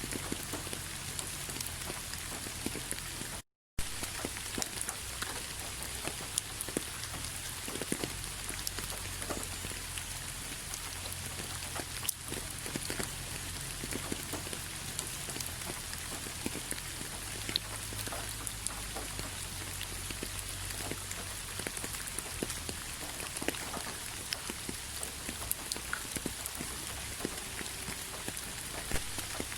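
Steady rain with many small, irregular drop taps. The sound cuts out completely for a split second about three and a half seconds in.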